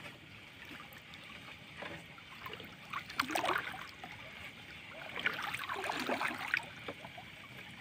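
Water splashing and dripping at the side of a small boat as a fishing net is pulled in by hand, with two louder bursts of splashing, one about three seconds in and a longer one from about five to six and a half seconds.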